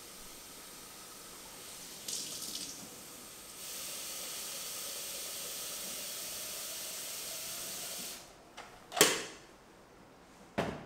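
Kitchen tap water running into the top reservoir of a plastic water filter pitcher. The flow gets louder a few seconds in and is shut off about eight seconds in. A few sharp knocks of the plastic pitcher being handled follow, one of them loud.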